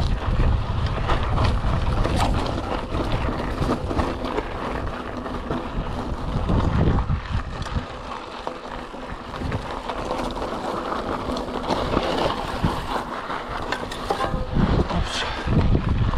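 Wind buffeting the microphone, with a Cube Reaction GTC Pro mountain bike's tyres crunching over loose stones and the bike clattering and rattling as it rides a rough rocky trail. Its suspension fork is locked out, so the jolts come through.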